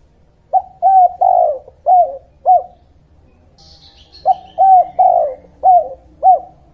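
A dove cooing in two phrases of five short, low notes each, with a pause of under two seconds between them. A faint, higher bird chirp comes in the gap.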